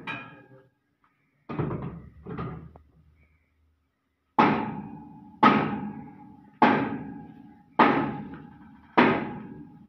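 Metal-on-metal blows on the steel threshing section of a Swaraj 8100 combine harvester as the thresher basket is fitted: a few irregular knocks, then five evenly spaced blows about a second apart, each ringing out and dying away.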